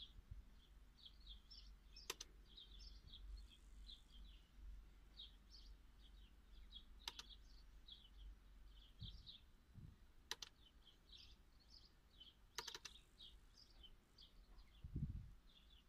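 Faint birds chirping on and off in the background, with sharp clicks of a laptop's touchpad or mouse button about every few seconds (four in all, the last a quick double click) and a dull knock near the end.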